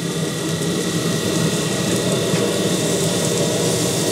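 Steady hum of a Cuisinart pellet grill's fan and firepot burning at high heat, about 400°F, with a faint click about two seconds in.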